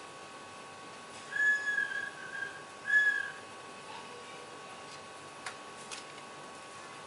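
Two high whistled notes, the first about a second in and the second about three seconds in, each held briefly at a steady pitch, over a faint steady hum. Two light clicks come near the end.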